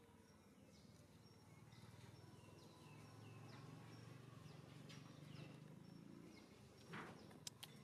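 Faint outdoor ambience of small birds chirping, many short falling chirps, with a low hum that swells in the middle and fades. A short scuffing noise and two sharp clicks near the end.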